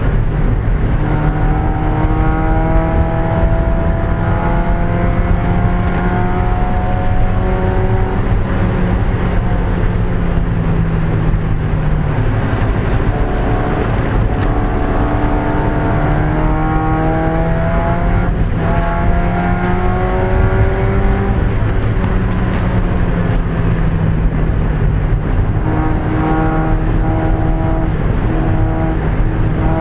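1995 Mazda Miata's four-cylinder engine running hard in a race, its note climbing steadily under acceleration, then dropping and climbing again several times as the car shifts and slows for corners, over a constant rumble and road noise.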